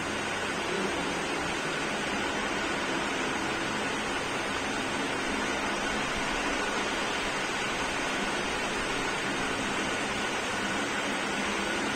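Steady rushing noise of fans and air conditioners running in a large hall, with a faint steady high tone over it.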